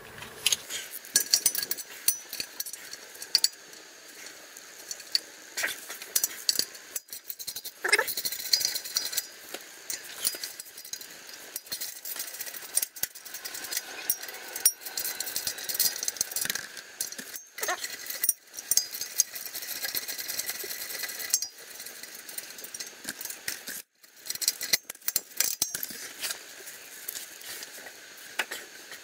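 Socket ratchet clicking in rapid runs while undoing the bolts on an exhaust pipe flange, mixed with metal clinks and sharp knocks of the loosened steel exhaust pipe and tools.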